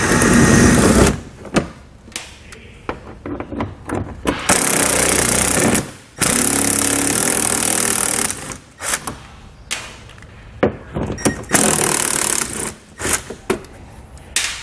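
Cordless impact driver with an 8 mm socket backing out plastic fender liner bolts, running in several bursts of one to two seconds with short pauses and small clicks between.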